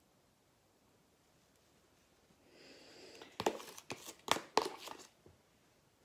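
A plastic tub being picked up and handled: a short soft rustle, then a quick run of sharp plastic clicks and crackles lasting a second or two.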